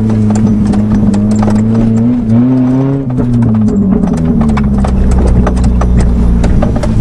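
A 1992 Talon's four-cylinder engine running at moderate speed, its pitch easing down about three to four seconds in, with a rapid scatter of clicks and knocks over it.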